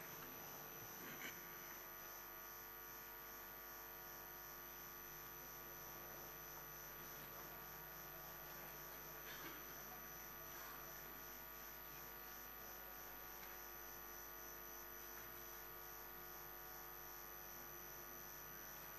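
Near silence over a faint, steady electrical hum made of several fixed tones.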